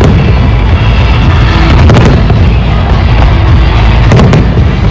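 Fireworks display: shells bursting overhead in a dense, continuous rumble and crackle, with sharp bangs about two seconds in and again near the end.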